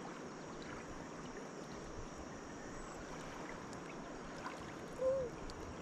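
Steady rushing of river water flowing past the bank. A brief tone that rises and falls sounds near the end.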